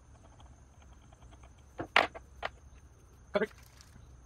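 Small steel bolts being handled against the damper and workbench: faint ticks, then a few sharp metallic clicks and clinks. The loudest comes about two seconds in, with another pair about a second and a half later.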